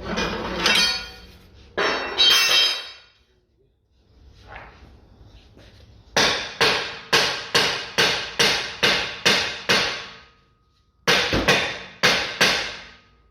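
Hammer blows on steel suspension parts: a couple of clattering strikes, then a steady run of about a dozen blows at about three a second, a short pause and four more.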